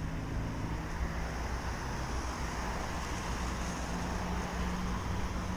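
Suzuki Bandit 650's inline-four engine running at low, steady revs through a Mivv aftermarket exhaust, with wind noise on the microphone.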